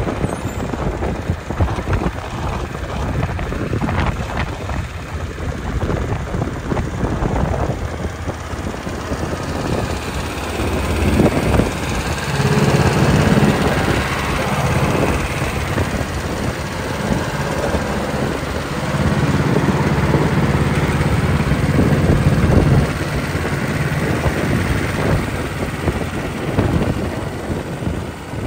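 John Deere Model LA tractor's two-cylinder engine running steadily with an even, low beat, somewhat louder through the middle of the stretch.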